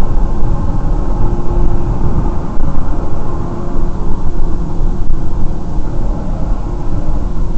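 Steady cabin noise of a moving car picked up by a dashcam inside it: engine and tyre drone with a strong low rumble.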